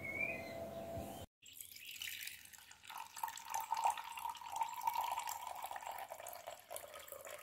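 Liquid trickling in a thin steady stream, with a faint steady tone running over it, after a brief break about a second in.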